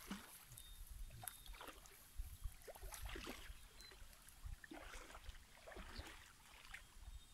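Faint sloshing and splashing of shallow pond water as a child wades through it, coming in a few short, irregular bursts.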